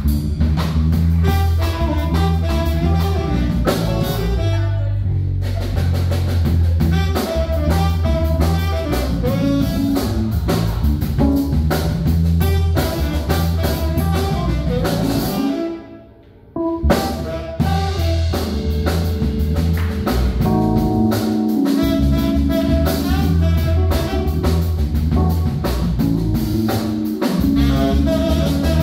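Live band playing: saxophone, Lakland electric bass, keyboard and drum kit, over a strong steady bass line. About sixteen seconds in the whole band stops together for about a second, then comes back in.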